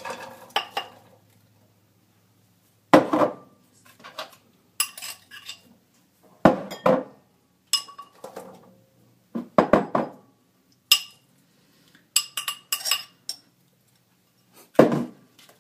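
A ceramic bowl knocking and clinking against a cooking pot as it is tipped and emptied into the pot. The knocks are sharp and irregular, a few seconds apart, with lighter clinks between them.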